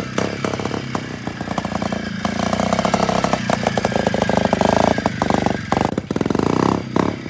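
Classic trials motorcycle engine running at low revs through a muddy section. The throttle is opened and closed repeatedly, so the engine note rises and falls. It is loudest in the middle as the bike climbs, with short drops in revs near the end.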